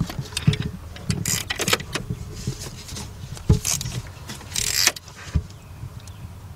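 Irregular metal clicks and short rasps of a hand tool running in the hold-down bolt of a camshaft position sensor in a Nissan 3.5 V6 engine bay, with a longer rasp about four and a half seconds in.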